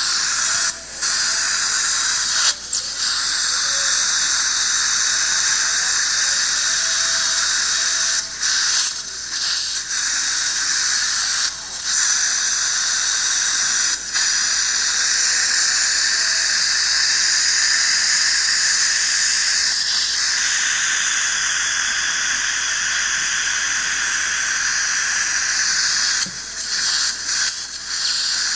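Surgical suction aspirator hissing steadily as it draws fluid from the mouth, with several brief breaks.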